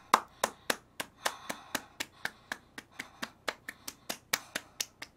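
A hand quickly and repeatedly slapping a bare belly, about four sharp slaps a second, uneven in loudness.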